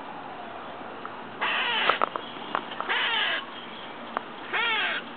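A squirrel giving three strange, raspy, cat-like calls about a second apart, the last one falling in pitch. A few short sharp clicks come in between.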